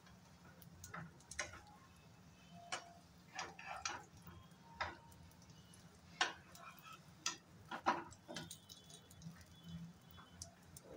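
Metal spatula and knife tip clicking and tapping against a nonstick frying pan as shallow-frying lentil patties are turned and prodded: about a dozen irregular clicks, the loudest a little past six seconds and near eight seconds in.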